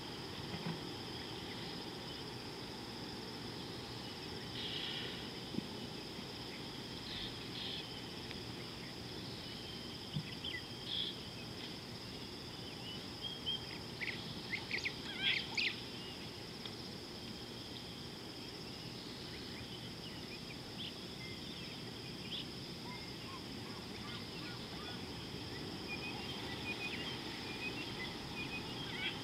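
Steady high-pitched insect drone with scattered short bird calls over it, including a brief flurry of chirps about halfway through.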